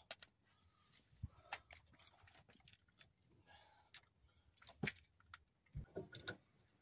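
Faint, scattered clicks and knocks of hand tools and metal parts being handled at an exposed front wheel hub, with a few sharper taps about five and six seconds in.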